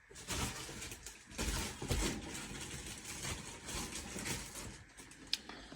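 Rustling and handling noises with a few dull knocks, as things are moved about, and a sharp click near the end.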